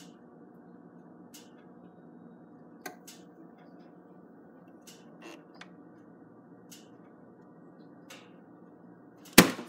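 Countertop vacuum sealer humming steadily through a heat-seal cycle, making a second, backup seal on the bag, with a few faint ticks. About nine seconds in, one sharp loud click as the machine's lid latch is released.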